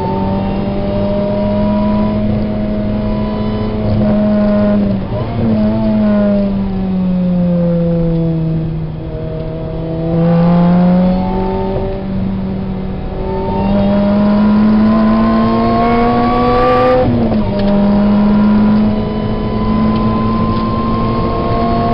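Lotus Exige's four-cylinder engine heard from inside the cabin at track pace: the note holds, drops about five seconds in and sinks for several seconds while slowing for a corner, then climbs under acceleration. Near the end of the climb it drops sharply on an upshift and starts rising again.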